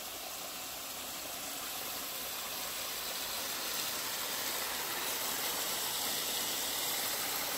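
Electrically pumped home waterfall running: a steady rush of falling water that grows slightly louder.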